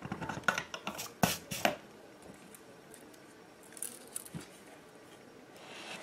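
Metallic clicks and taps of tools handled on a workbench as a soldering iron is lifted from its stand and a spool of solder is picked up, a quick cluster in the first two seconds with the three loudest strikes there, then a few fainter ticks about four seconds in.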